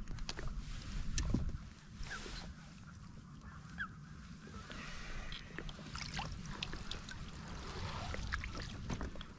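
Waterfowl calling: short scattered honks and chirps over a steady low rumble, with occasional clicks.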